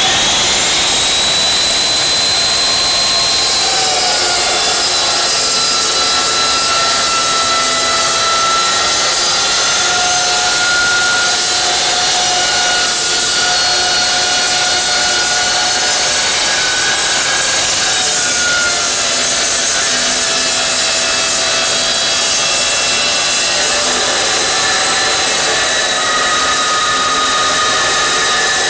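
Evolution Rage 2 dry-cut chop saw cutting through steel stock in one long continuous cut: the motor and blade run at full speed with a loud, steady grinding screech and a high whine whose pitch wavers slightly as the blade bites into the metal.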